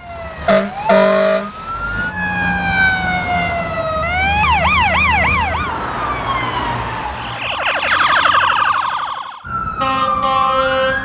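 Emergency vehicle sirens sounding together, switching between slow rising and falling wails and a fast yelp, with a rapid warble part way through. Short steady horn blasts come near the start, and a longer steady horn sounds near the end while another wail starts to rise.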